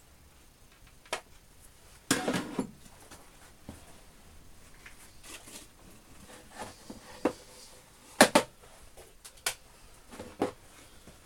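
Scattered clicks, rattles and light knocks of a depth gauge and other small metal tools being handled and set down in a tool storage box. The loudest is a sharp double click about eight seconds in.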